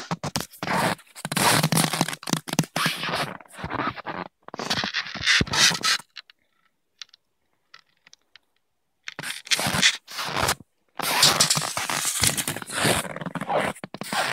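Irregular crunching and scraping of footsteps in cold, dry, crusty snow, with a quiet gap of about three seconds in the middle.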